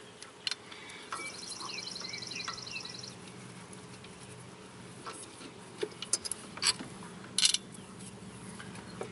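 Scattered metal clinks and knocks of hand tools and parts as a power steering pump is unbolted and pulled from an engine bay, the loudest few near the end. Birds chirp in the background.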